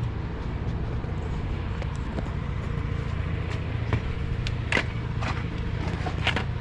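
A steady low rumble like a vehicle running, with a few sharp metallic clicks and clinks of hand tools working on the exhaust bolts, the loudest about four to five seconds in and near the end.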